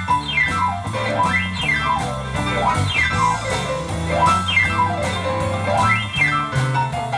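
Live rock-and-roll oldies band playing an instrumental passage: a keyboard runs down and up in repeated sweeping glissandos over a steady drum and bass beat.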